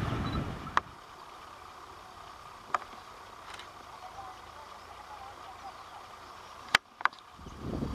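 The rumble of a receding train fades out in the first second, leaving quiet open-air ambience. Four sharp clicks sound over it: one about a second in, one near three seconds, and a close pair near the end. Low wind rumble on the microphone rises again at the very end.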